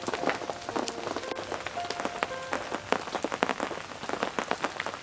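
Steady rainfall, with many separate drops tapping close by.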